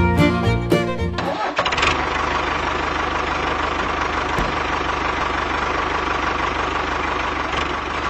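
Banjo-like plucked-string music for about the first second, then a sudden cut to a tractor engine sound that starts and runs steadily with a low, even pulse.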